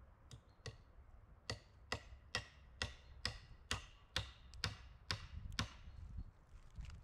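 A hand tool striking wood in a steady rhythm: two light taps, then about ten sharp knocks at roughly two a second, each with a brief bright ring.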